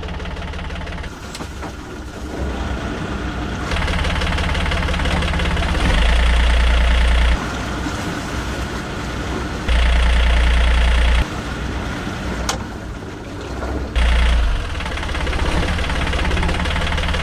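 Sailboat's inboard engine running in forward gear, heard close up, its revs raised by the throttle and louder in stretches about six and ten seconds in. The owner takes the drive that sometimes fails to engage for a slipping clutch cone in the gearbox.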